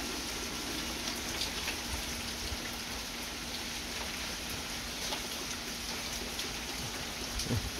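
Steady rain falling on pavement and yard, an even hiss with scattered drops ticking close by.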